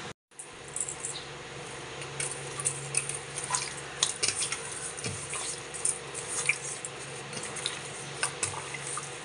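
Hands kneading and turning raw pork belly in a stainless steel bowl: irregular wet squishes and slaps with light clinks against the bowl, over a steady low hum.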